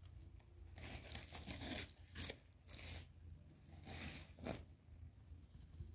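Woven plastic sack rustling and crinkling as it is shaken out over a bowl of flour and folded away, in several short bursts.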